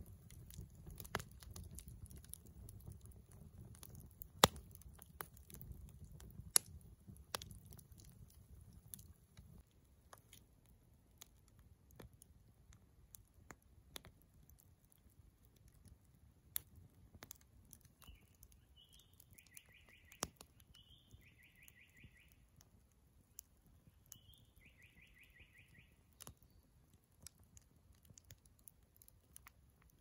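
Wood fire crackling, with sharp irregular pops from the burning logs over a low rumble that fades out about a third of the way in. A little past the middle, three short bird trills sound in the background.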